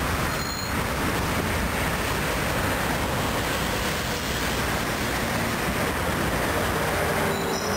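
Steady rushing noise of road traffic passing on a busy highway.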